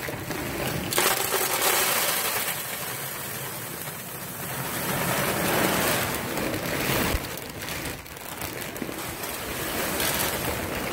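Wood pellets poured from a bag into the empty metal hopper of a Pelpro pellet stove: a steady rushing rattle of pellets hitting and piling on metal, swelling twice as the bag is tipped.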